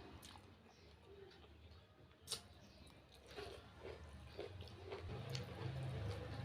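A person chewing a mouthful of rice and curry close to the microphone, with scattered small mouth clicks and one sharper click a little over two seconds in.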